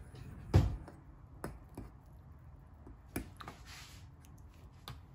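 Utensil knocking and clicking against a bowl while noodles are mixed: a handful of sharp, scattered knocks, the loudest about half a second in, with a brief scraping rustle between three and four seconds in.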